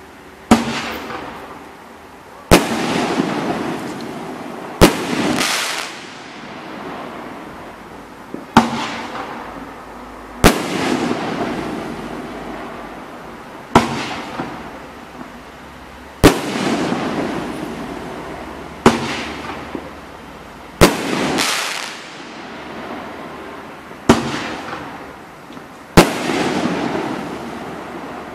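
A Wolf Howling 2-inch, 9-shot consumer firework cake firing: a sharp bang every two to three seconds, about eleven in all, each followed by a rush of noise that fades over a second or two.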